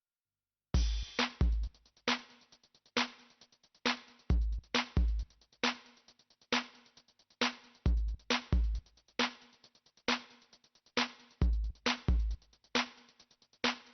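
Background music with a drum-machine beat, kick-drum and snare hits, starting about a second in.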